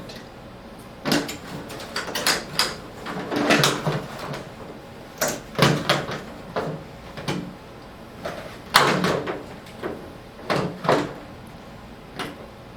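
Irregular clicks, knocks and rattles of wiring and connectors being worked loose inside an opened flat-screen TV, the loudest about nine seconds in.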